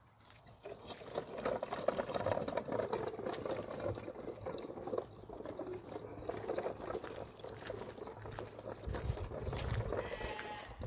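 White domestic goose honking repeatedly as it walks, over a crunching crackle from small plastic wheels rolling on gravel. A short, higher-pitched call comes near the end.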